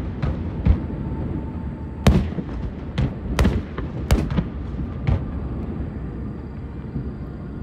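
Aerial firework shells bursting: a run of sharp booms at irregular spacing over a steady low rumble, about seven in the first five seconds, then a lull.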